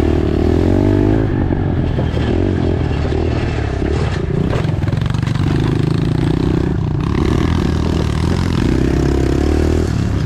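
Pit bike engine running while ridden along a dirt trail, the revs rising and falling with the throttle, plus a few knocks from the bike over the bumps.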